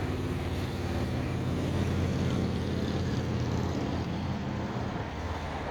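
Low, steady engine hum of a motor vehicle, swelling about two seconds in and easing off near the end.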